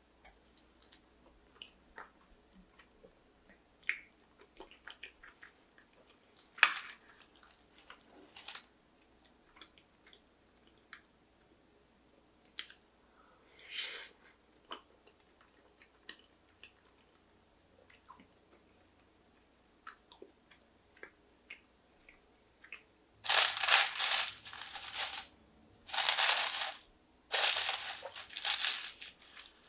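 Soft chewing and small mouth clicks, then, from about 23 seconds in, loud crackling as a spoon breaks and lifts the crisp layers of a baked phyllo pastry crust.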